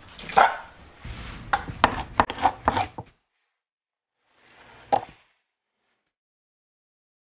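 Metal spoon scraping raw rockfish fillet on a bamboo cutting board in a run of quick strokes, scraping the flesh from the skin for fish-ball paste. It cuts off suddenly about three seconds in; a second later comes one more short scrape ending in a tap.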